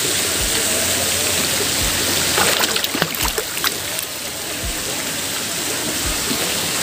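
Water running down water slides and pouring into a pool, a steady rushing splash, with a few short clicks or splashes about halfway through.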